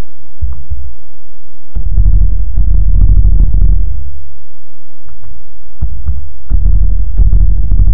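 Typing on a laptop keyboard, heard as dull low thumps with faint clicks. It comes in two runs of keystrokes, from about two seconds in and again near six seconds in.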